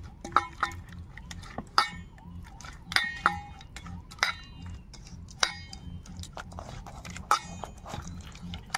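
Hand mixing thick rice-flour batter in a stainless steel bowl: soft squishing broken by irregular sharp clinks as the hand knocks against the bowl, several of them ringing briefly.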